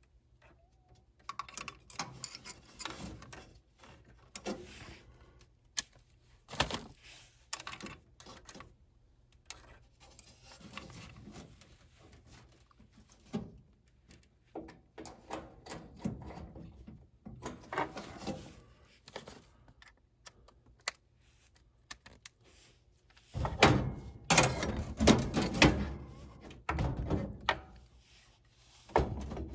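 Scattered clicks, taps and clunks of hand tools and metal furnace parts being handled during reassembly, with a denser, louder run of clatter in the last several seconds.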